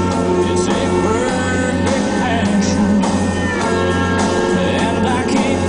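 Rock music with a singing voice, steady and loud throughout.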